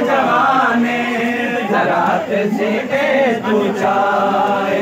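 A crowd of men chanting a Punjabi noha, a Muharram mourning lament, together.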